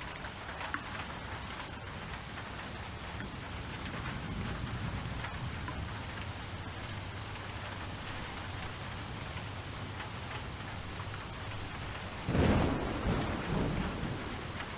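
Steady rainfall with a clap of thunder near the end, a sudden low rumble that rolls off over a couple of seconds.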